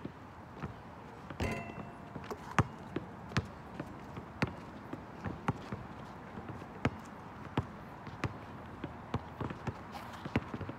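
Basketball dribbled on an outdoor asphalt court: sharp, irregular bounces, about one or two a second, with a brief pitched squeal about a second and a half in.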